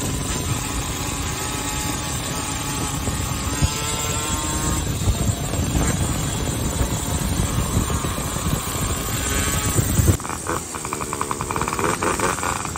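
Two-stroke moped engine running at road speed under heavy wind rush on the microphone, with an engine note rising in pitch around four seconds in. About ten seconds in the wind noise drops and the engine's rapid, even exhaust pulse comes through clearly.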